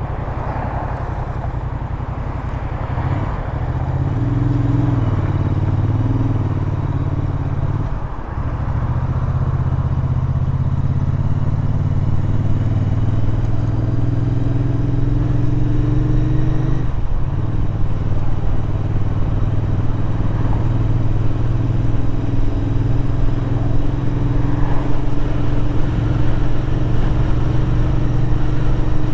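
Royal Enfield Interceptor 650's parallel-twin engine running on the move. Its note climbs slowly and breaks briefly about 8 and 17 seconds in, as when changing up a gear.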